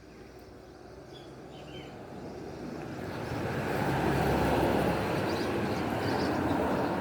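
Vehicle noise that swells gradually over about four seconds, then holds loud.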